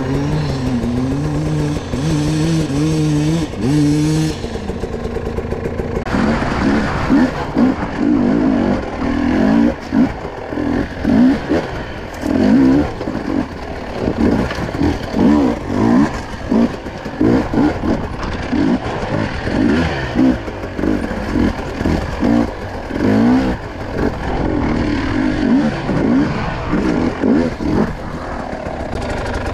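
Enduro motorcycle engine ridden off-road: a steady engine note for the first few seconds, then from about six seconds in it revs up and drops back again and again under throttle.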